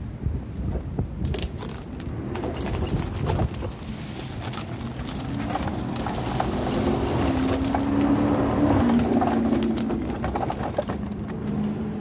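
Footsteps crunching and rustling through grass and fallen leafy branches, with scattered short clicks, over a steady low rumble of city traffic. Midway through, a pigeon coos a few low calls.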